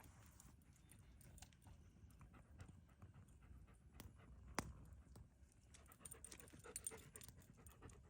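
A dog panting faintly, with scattered small clicks and a sharper tick about halfway through.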